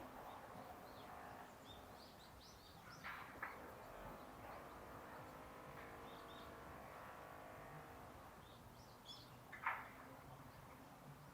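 Faint outdoor ambience with small birds chirping, short high calls scattered throughout. A couple of short sharp clicks come about three seconds in, and a louder one near the end.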